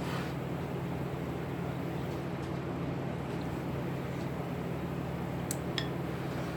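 Steady low mechanical hum, with a couple of faint clicks near the end.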